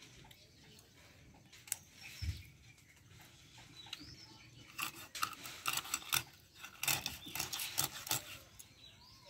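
A blade working on a tilapia: a few separate clicks and a dull knock, then a fast run of sharp scraping strokes from about five seconds in to about eight. Faint bird chirps sound behind it.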